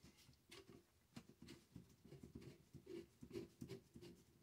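Faint handling noises from gloved hands on a Remington 870 Tac-14 pump shotgun: scattered soft clicks and rubs as the gun is gripped and shifted.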